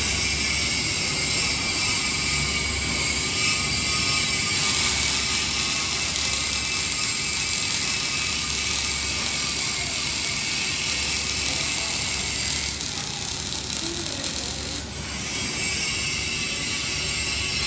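Robotic arc welding on steel: the welding robot's arc gives a steady hiss and crackle over factory noise, dipping briefly near the end.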